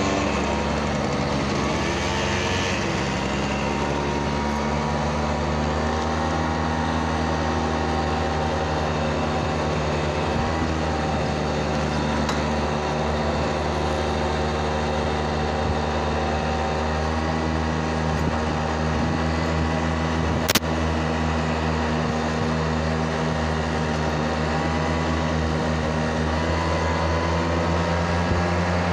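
Small motorbike engine running at a steady cruise with wind rush on the microphone. A single sharp click about two-thirds of the way through.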